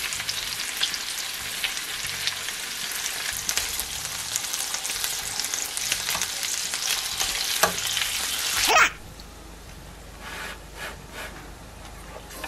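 Pork belly and pork neck slices sizzling in a hot grill pan, with sharp clicks of chopsticks and kitchen scissors as the meat is turned and cut. The frying cuts off suddenly about nine seconds in, leaving a much quieter stretch with a few soft clicks.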